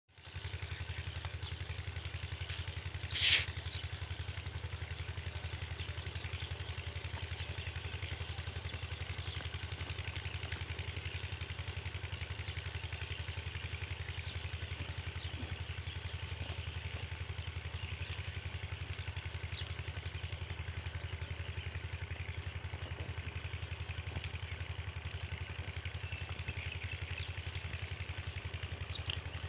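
Small engine idling steadily, an even low throb without a break, with faint scattered clicks over it and one brief sharp high-pitched sound about three seconds in.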